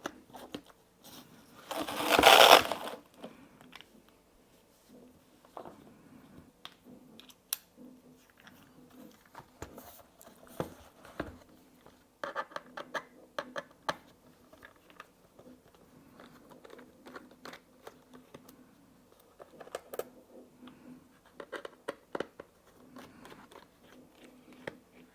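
Hand-tool handling noises while a MacBook Air is taken apart: a loud rustling scrape about two seconds in, then scattered small clicks and short rattles of a screwdriver and screws on the laptop's case.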